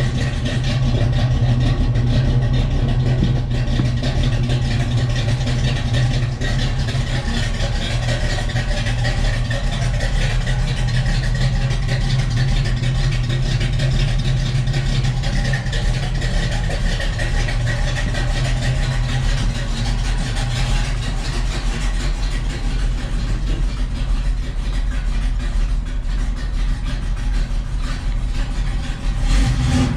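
1967 Pontiac Firebird's 400 V8, fitted with a mild cam and Flowmaster exhaust, idling steadily after a cold start. The low exhaust note eases a little about two-thirds of the way in.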